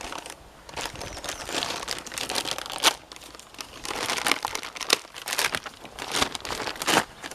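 Packaging crinkling and rustling as the new motorcycle sprocket is handled and unwrapped, with a few sharp clicks about three, five and seven seconds in.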